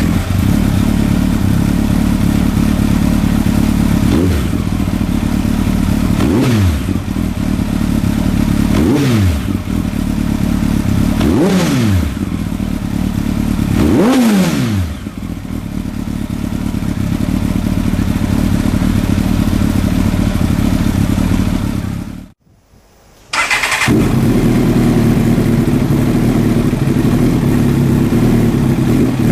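Kawasaki ZX-12R inline-four motorcycle engine on an aftermarket Akrapovic full exhaust, idling loudly with five sharp throttle blips in a row, each rev rising and dropping back. The sound breaks off for about a second two-thirds of the way through, and then the engine idles again steadily.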